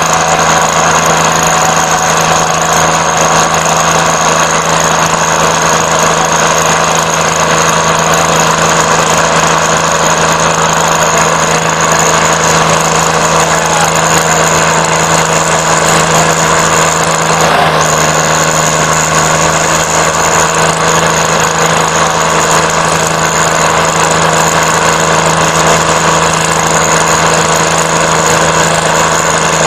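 Diesel tractor engines of a Swaraj 855 and an Arjun 605, running loud and steady at full throttle under heavy load as the two tractors pull against each other in a tug-of-war. The pitch holds level throughout with no revving up or down.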